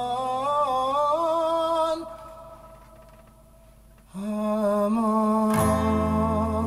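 A man sings a wordless melody with an acoustic guitar. The voice stops about two seconds in, leaving a short hush, comes back after about two seconds, and a strummed guitar chord comes in near the end.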